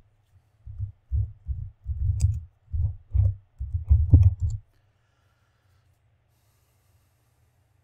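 Typing on a computer keyboard: about a dozen keystrokes over roughly four seconds, heard mostly as dull low knocks with light clicks on top, stopping a little past halfway.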